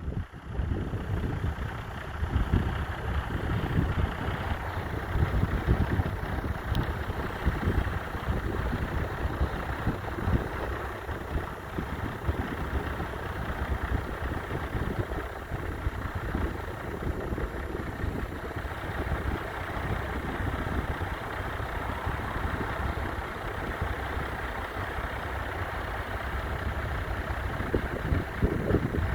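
1966 McCormick 434 tractor's 2.5-litre four-cylinder diesel engine running steadily at working speed.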